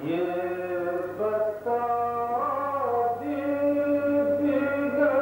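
A man chanting verse in a slow, sung melody, a few long held notes that slide from one pitch to the next.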